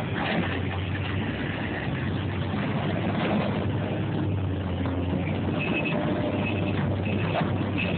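A hydraulic excavator's diesel engine running steadily as it demolishes a wooden garage, with scattered cracks of breaking timber and debris. From about two-thirds of the way in, a high beep repeats several times, typical of a machine's travel or backup alarm.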